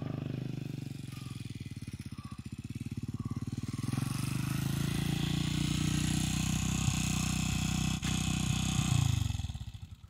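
Dirt bike engine running as the bike climbs a gravel road, growing louder from about four seconds in as it approaches. The sound cuts off abruptly near the end.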